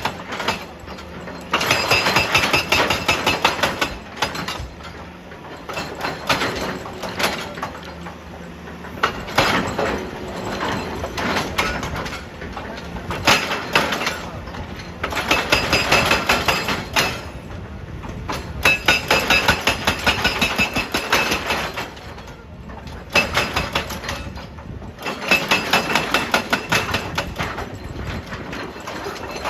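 Excavator-mounted hydraulic breaker hammering in repeated bursts of a few seconds, each a rapid stream of blows with a metallic ring, about six bursts in all. The excavator's engine runs steadily in the pauses between bursts.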